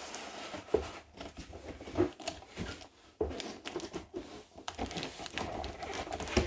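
Hands working at a Hot Wheels display case's plastic packaging, with irregular clicks, knocks and rustling as a die-cast car held in tight is pried loose.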